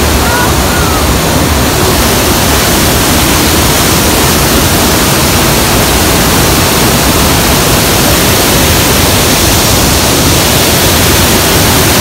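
Loud, steady rushing roar of a large waterfall, with faint voices under it at the start and near the end.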